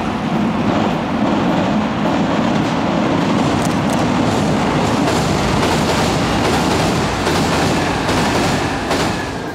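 Electric train passing on the Kintetsu Minami Osaka Line over a railway bridge: a loud, steady rumble with the clack of wheels over rail joints through the middle and later part. It fades near the end.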